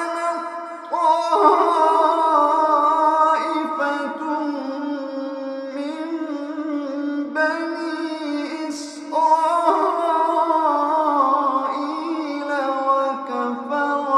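A man's voice reciting the Quran in a slow, melodic chanting style, drawing out long wavering notes, with a new phrase beginning every few seconds.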